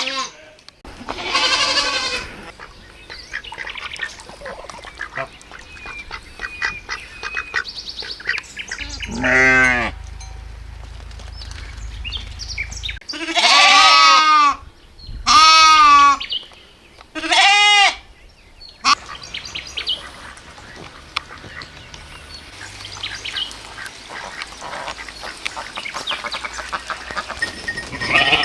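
Farm animals bleating: several loud wavering bleats, most of them clustered in the middle. Between them is a quieter barnyard background with faint bird chirps.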